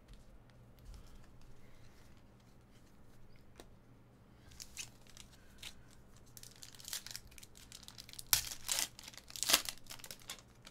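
A trading-card pack wrapper being torn open and crinkled by hand. After a few quiet seconds it starts as a run of quick crackling tears, loudest in two sharp rips near the end.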